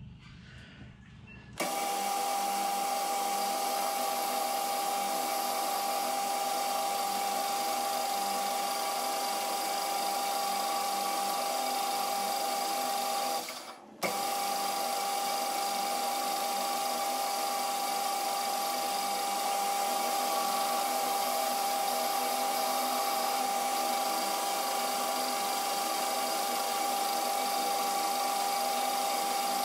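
Hafco AL960B metal lathe running with a four-jaw chuck, a steady whine made of several fixed tones. It starts abruptly about a second and a half in and drops out briefly about halfway through.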